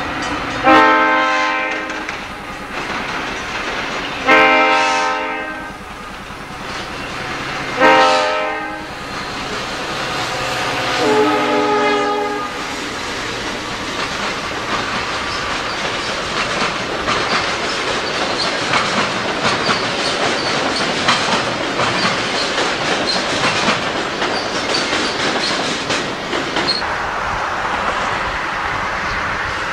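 Metra commuter train's horn sounding four blasts, about three and a half seconds apart, as the train approaches. Then the bilevel passenger cars pass close by with a steady clickety-clack of wheels over the rail joints.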